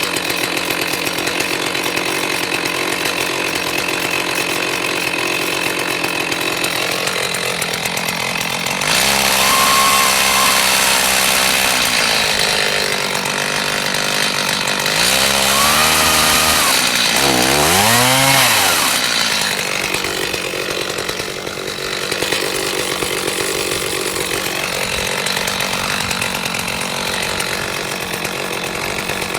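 Chainsaw running at a low, steady speed, throttled up to a steady high speed about nine seconds in and again around fifteen seconds, then revved once with a pitch that rises and drops back down around eighteen seconds.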